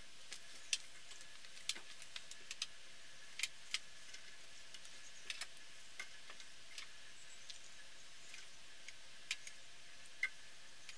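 Stainless steel wire being wound tightly around a wooden hammer handle, giving light, irregular metallic clicks and ticks, about two a second, with a sharper click near the start and another near the end.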